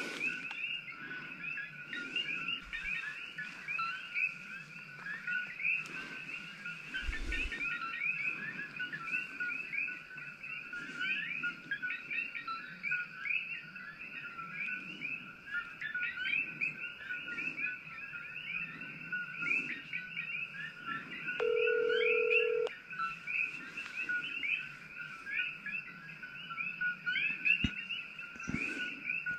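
Dense night chorus of coqui frogs, countless short two-note 'ko-kee' chirps overlapping without pause. About two-thirds of the way through, a single electronic beep sounds for about a second.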